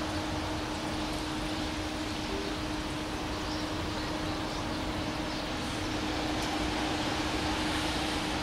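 A train running on the line: a steady rushing noise with a constant low hum, growing slightly louder in the last couple of seconds.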